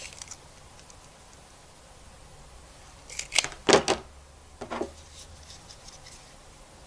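A few short, sharp snips and clicks, bunched together about three to five seconds in, from hand tools cutting away the metal shielding of an AGL primary cable.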